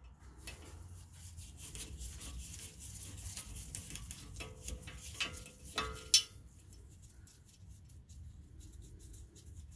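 Two sharp metallic strikes with a short ring a little past halfway: a hammer hitting a hand impact driver seated in a brake rotor's Phillips retaining screw to break the screw loose. Before them, light clicking and scraping of the driver bit in the screw.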